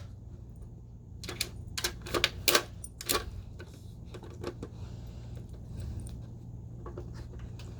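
Sharp clicks and knocks of a puzzle box's pieces being handled and lifted by a pet, a quick cluster of about ten in the first few seconds, then a few fainter ones.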